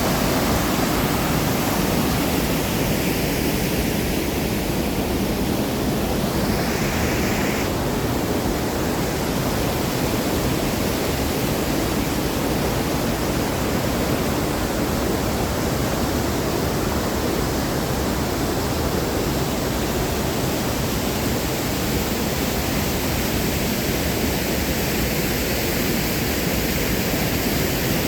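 Waterfall: a steady, loud rush of falling water with no change throughout.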